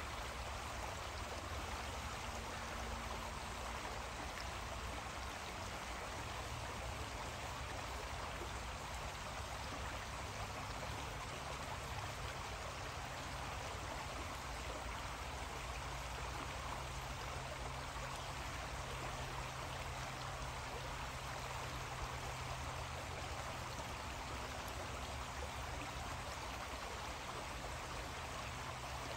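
A creek running steadily, an even rush of flowing water.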